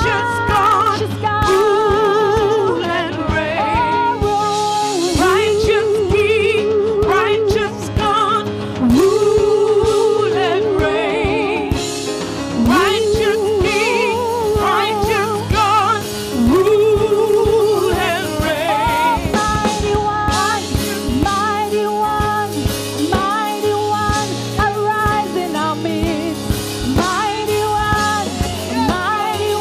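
Live worship song: a woman sings the lead melody into a microphone with wavering held notes, backed by a band with a drum kit and cymbals. In the second half, other voices join in harmony.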